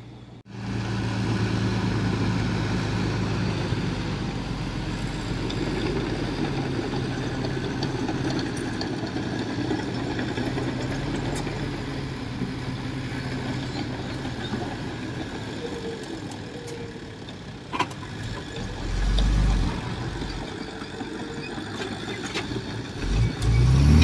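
Heavy diesel earthmoving machinery, a bulldozer or dump truck, running steadily with its engine note shifting slightly. There is a sharp knock part way through and heavy low thuds near the end.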